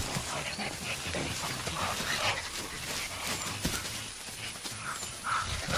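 Mountain gorillas making short, irregular soft grunts and calls while feeding as a group.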